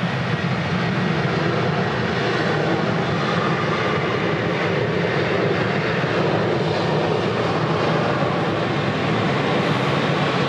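Jet airliner's engines running, a steady, even rushing noise with no change in pitch.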